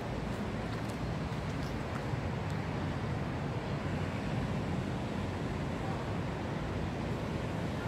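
Steady outdoor background rumble, heaviest in the low range, with no distinct event; a few faint ticks in the first two seconds.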